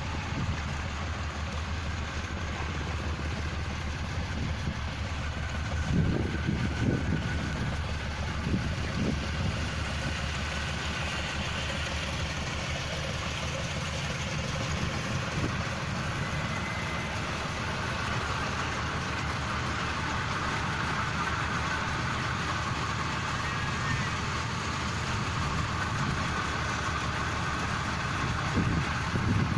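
Hino diesel engine of a John Deere rice combine harvester running steadily, with a few louder knocks about six to nine seconds in.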